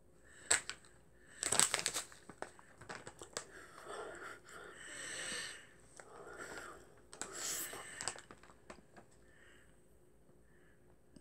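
Snack bag of chocolate-coated walnuts crinkling and rustling as it is handled, in a series of irregular crackly bursts and clicks over the first eight seconds or so.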